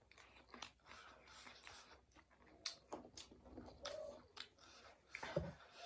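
Faint eating sounds: soft chewing of noodles with scattered light clicks.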